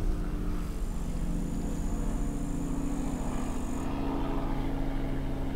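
A steady motor hum holding a constant low pitch, with a faint high whine above it that stops about four seconds in.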